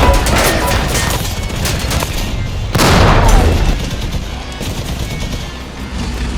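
Battle sound effects: rapid machine-gun fire crackling for the first couple of seconds, then a heavy blast just under three seconds in that dies away into a lower rumble.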